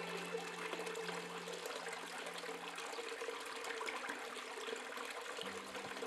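Water trickling and splashing as it falls in thin streams off a mossy ledge into the water below. Soft background music fades out about halfway through and starts again near the end.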